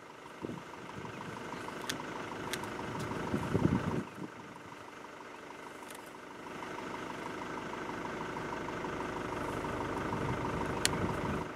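Open safari vehicle's engine idling steadily, with a few sharp clicks over it.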